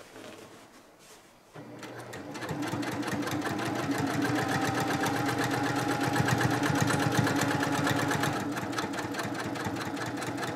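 Sewing machine stitching through a quilted binding. It starts about a second and a half in, quickly speeds up to a steady, fast run of needle strokes, and eases off slightly near the end.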